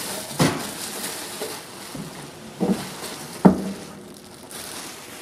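Thin plastic bag rustling and crinkling as it is pulled off a benchtop centrifuge, with two sharp knocks, about half a second in and again about three seconds later.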